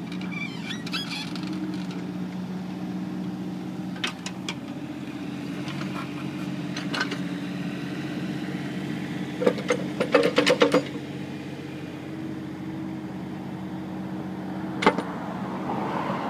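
Mini excavator's diesel engine running steadily, with sharp metallic clanks and knocks from the machine working, a quick cluster of them about ten seconds in.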